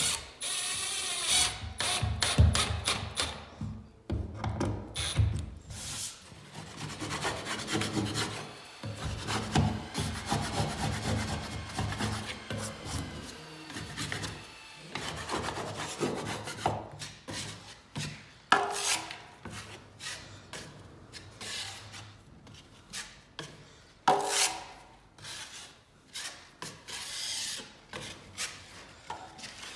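Metal drywall knife scraping over a drywall patch in repeated, irregular strokes, trimming the rough paper edges and then spreading a thin coat of joint compound.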